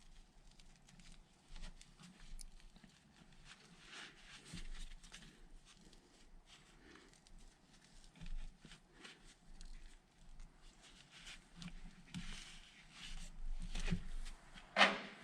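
Faint, scattered clicks and scrapes of hand tools working a heavy battery cable, with one brief louder scrape near the end.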